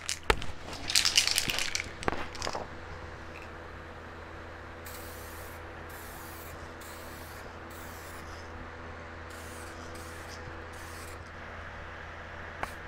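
SprayMax 2K aerosol can spraying base coat in a series of short hissing bursts, about seven of them, over the steady hum of a fan. Brief rustling and rattling in the first two seconds.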